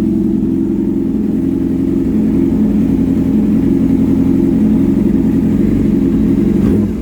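Yamaha R6 sport bike's inline-four engine idling steadily through an aftermarket exhaust.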